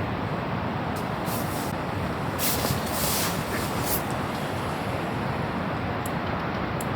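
Strong wind blowing steadily, a rushing noise with a few brief hissing gusts between about one and four seconds in.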